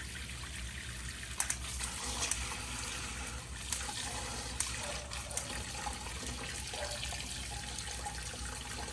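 Hot water running steadily from the outlet of a diesel combination water heater during a flow test, with a low hum under it and a few brief clicks.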